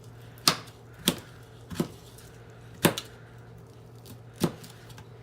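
A kitchen knife cutting strawberries, its blade knocking down through the fruit five times at uneven intervals.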